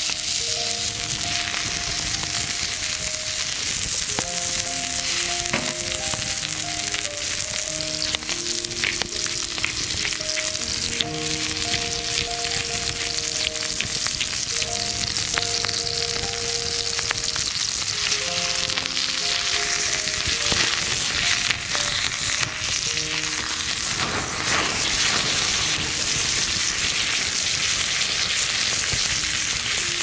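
A thick cut of meat frying in a steel pan over a wood fire: a steady sizzle with scattered sharp pops. A soft background melody plays under it and fades out about three quarters of the way through.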